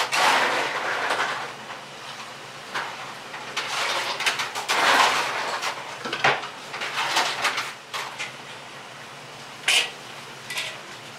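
Kitchen work at a counter grill: knocks, clinks and handling sounds. There are several swells of rushing noise a second or two long, and a sharp knock near the end.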